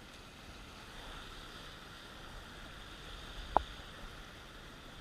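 Steady wash of the sea along the rocks, with a single sharp click about three and a half seconds in.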